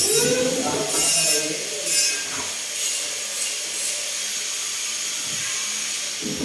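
Scraping and rubbing strokes of a hand tool on wood, recurring about once a second and fading out after the first few seconds, over a steady hiss.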